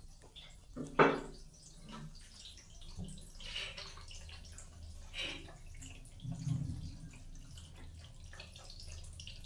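Water dripping and trickling in a small tiled bathroom, scattered drips over a steady low hum, with one sharp knock about a second in.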